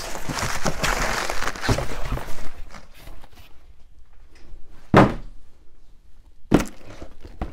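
Paper packing material rustling and crinkling as it is stuffed into a cardboard box, followed by two sharp thuds about a second and a half apart as cardboard boxes are set down on the bench.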